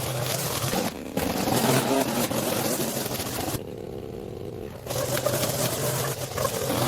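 Small petrol engine of yard equipment running steadily with a constant low hum; its higher sound drops away for about a second just past the middle.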